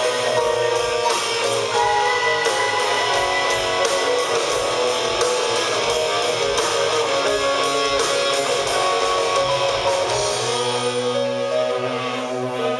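Live rock band playing an instrumental passage: a sustained lead electric guitar melody over bass and drums, with the drum hits thinning out about ten seconds in.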